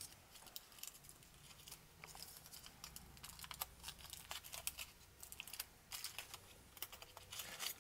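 Faint crinkling and scattered small crackles of a thin foil wrapper being peeled by hand off a small chocolate egg.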